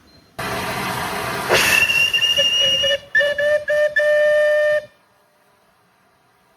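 Steam locomotive whistle over a loud rushing noise: it sweeps up into one long blast, then gives a few short toots and another held blast before cutting off suddenly.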